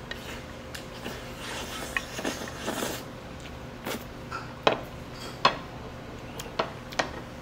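Cutlery clinking against dishes during a meal: several sharp, separate clinks spread a second or so apart over a low room hum.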